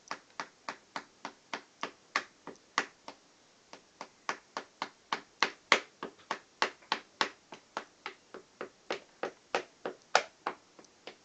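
A child's small hammer tapping on the tacks of a hammering-game board. The taps come quick and uneven, about three to four a second, with a short break about three seconds in.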